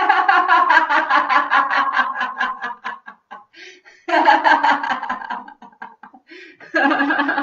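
A woman laughing out loud as a laughter-yoga exercise, in three long bouts of rapid ha-ha pulses, about seven a second, with short pauses between.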